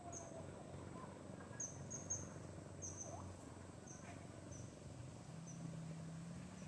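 Faint outdoor insect ambience: short high chirps repeated irregularly, about every half second, over a steady thin high drone. A low hum comes up near the end.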